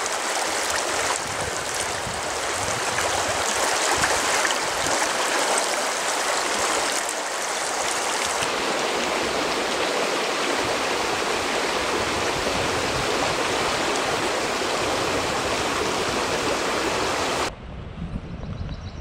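River water rushing over rocks and shallow riffles, a steady dense wash. It cuts off sharply near the end, leaving a low rumble.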